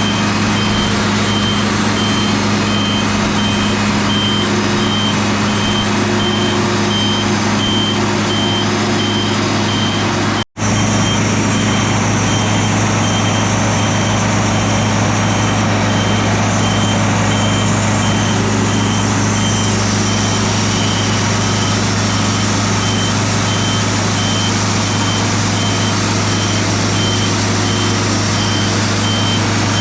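Heavy diesel machinery running steadily, with a high electronic reversing alarm beeping over it at an even pace. The sound cuts out for an instant about ten seconds in.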